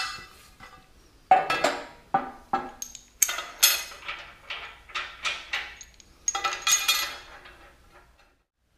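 Steel bolts and washers clinking and clanking against heavy steel angle brackets as they are set in place: about a dozen sharp metallic knocks, each with a short ring, dying away near the end.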